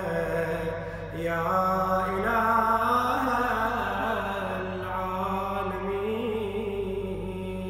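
A man's voice chanting an Arabic supplication (du'a) in long, slow, drawn-out melodic phrases.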